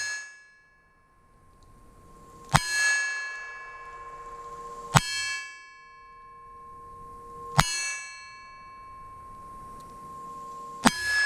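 Marlin .22 LR rifle firing CCI Mini Mags, four sharp shots about two and a half to three seconds apart. Each is followed by a clear metallic ring that lasts a couple of seconds.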